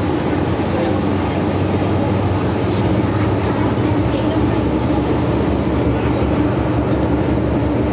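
MTR M-Train electric multiple unit heard from inside the carriage while running: a steady rumble of wheels on rail with an even hum through it.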